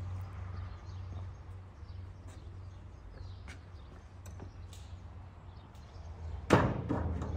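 A few faint clicks and taps over a low steady hum, then one sharp, loud knock about six and a half seconds in that rings briefly.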